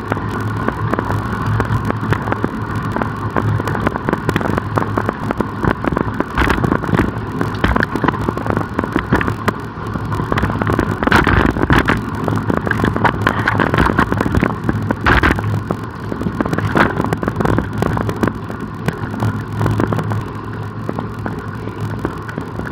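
Wind rushing over the microphone and tyre and road noise from a road bicycle in motion, steady throughout, with many small scattered knocks and rattles.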